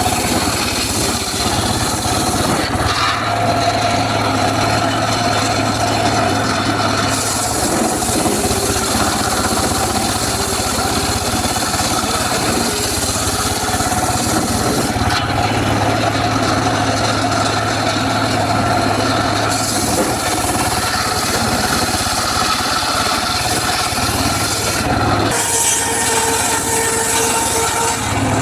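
Homemade circular saw running and cutting teak wood. It is a loud, continuous machine-and-blade noise whose tone shifts every few seconds, a low hum coming and going.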